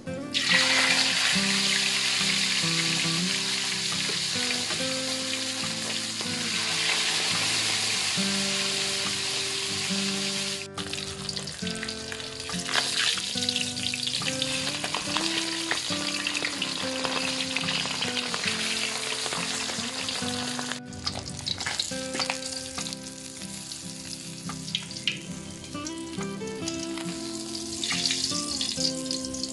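Whole small fish sizzling as they fry in hot cooking oil in a wok, the sizzle starting suddenly about half a second in as the fish go into the oil and loudest over the first few seconds. Background guitar music plays underneath.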